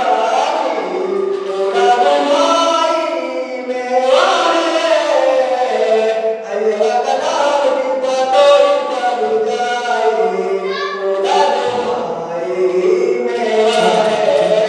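A man singing a Mewati folk song into a handheld microphone, unaccompanied, in a continuous wavering melodic line.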